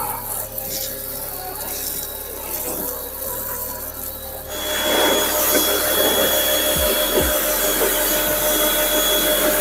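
Electric pressure washer running with its water jet spraying against a car's body panels. About four and a half seconds in the sound gets louder and closer, with a steady motor whine over the hiss of the spray.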